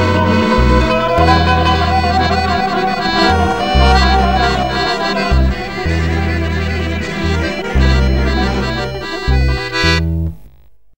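Background music with a melody over a steady bass line of low notes that change about once a second. It stops about ten seconds in.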